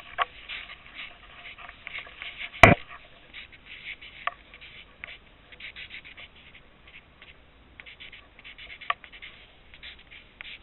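Graphite pencil writing on paper: a run of short scratching strokes as letters are drawn, with one sharp knock about two and a half seconds in.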